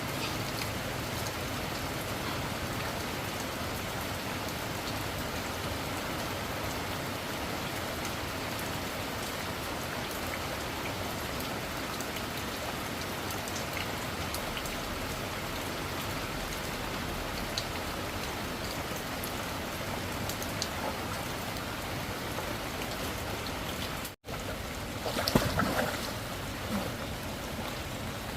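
Steady rain falling, an even hiss of drops. About 24 s in the sound cuts out for an instant, then there is a short cluster of louder knocks a second or so later.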